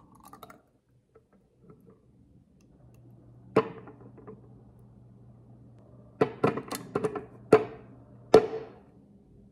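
Blender cup knocked against the rim of a small glass jar to shake out the last of the blended ginger and lemon: sharp clinks with a short ring, one a few seconds in, then about six in quick succession near the end.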